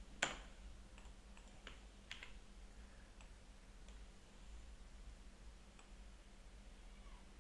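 Scattered clicks of a computer mouse and keyboard: one sharp click about a quarter second in, then a few fainter ones about two, four and six seconds in, over a faint steady low hum.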